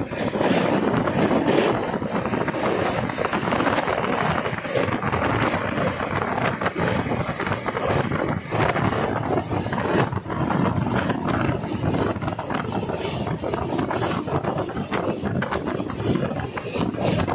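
Moving passenger train heard from an open coach door or window: steady running rumble of wheels on rails with many short clicks and knocks, and wind buffeting the microphone, as it crosses a steel truss bridge and runs onto plain track.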